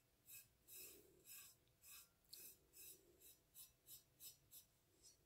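Fingertips rubbing textured rust-effect paint paste onto a stainless steel tumbler: a dozen or so short, faint rubbing strokes that come quicker toward the end.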